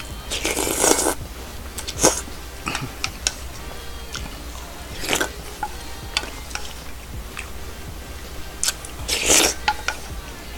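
A person slurping and chewing beef-and-radish soup from a bowl: a few short noisy slurps, the longest about half a second in and again near the end, with small mouth and utensil clicks between them.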